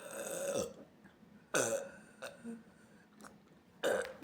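A woman burping three times: one burp trailing off in the first second, another about a second and a half in, and a short one near the end, each dropping in pitch.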